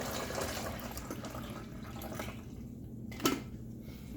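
Water pouring into a coffee maker's reservoir, tapering off about halfway through, followed by a single sharp click a little after three seconds in.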